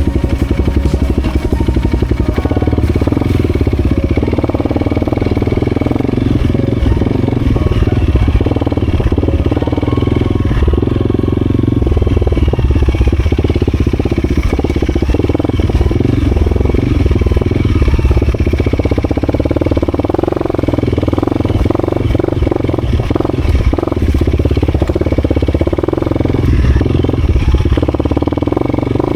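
A vehicle engine running steadily under load, its low rumble rising and falling, with some clatter over it.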